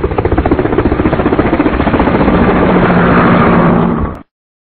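Synthesized logo-intro sound effect: a rapid fluttering pulse, about eight beats a second, over a droning tone. It swells slightly and then cuts off suddenly near the end.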